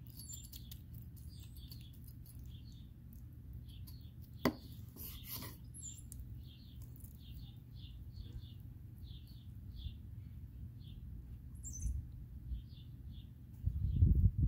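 A small bird chirping over and over in short high notes, a few a second, over a steady low rumble of outdoor background noise. A sharp click comes about four and a half seconds in, and a loud low thump comes near the end.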